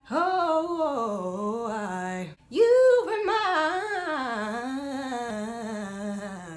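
A woman's unaccompanied voice singing R&B riffs and runs, the pitch winding quickly up and down through held vowels. There is a brief break for breath about two and a half seconds in.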